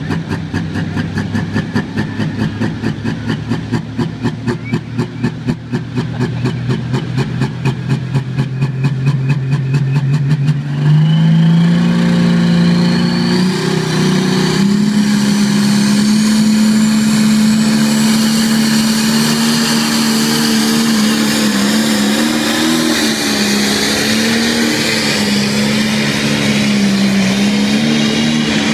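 Diesel pulling tractor's engine pulsing in a rhythmic lope, then about ten seconds in the throttle opens to a loud, steady high-rev run under the load of the pull, its pitch wavering. A high turbo whine climbs slowly over it.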